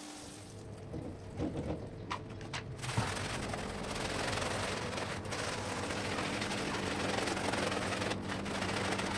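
A few knocks, then a handheld scrub brush scrubbing a foamy, soap-soaked rug fast and continuously, a dense rasping of bristles over a steady low hum.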